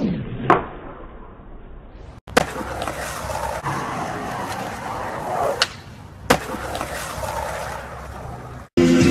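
Skateboard wheels rolling on rough asphalt, broken by several sharp clacks of the board hitting the ground, with the sound cut off abruptly twice as the footage changes.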